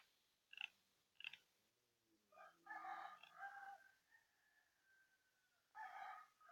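A rooster crowing faintly: three short clicks, then a long call with a drawn-out falling tail, and a second crow starting near the end.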